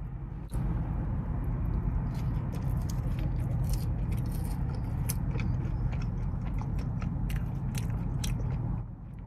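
Close-up chewing of fries dipped in cheese sauce, with many small sharp wet mouth clicks. A low rumble sets in abruptly about half a second in and drops away near the end.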